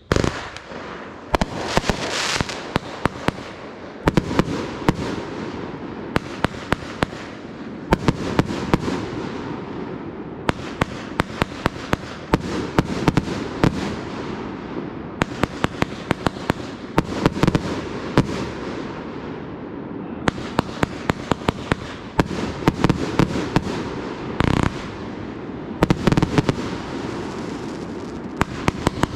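Fireworks going off without a break: shells bursting over a constant rumble, with rapid runs of sharp crackling pops throughout.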